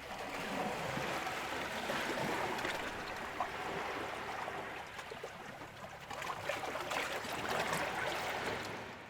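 Ocean waves breaking and washing in: a hissing wash of surf that swells, eases off about halfway through, then surges again near the end.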